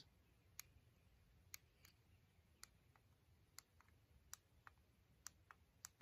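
Faint clicks from the buttons of a JJC SR-F2 wired camera remote as a thumb presses them, about ten irregular clicks; each click gives a confirmation that the button has been pressed.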